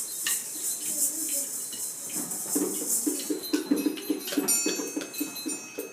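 Small hand percussion instruments played together: a rhythmic shaker-like hiss for the first half, then a quick run of taps, knocks and clicks, several a second.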